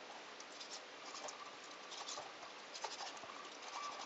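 A kitchen knife slicing skin off a raw chicken backbone on a wooden cutting board: faint, irregular scratching and scraping.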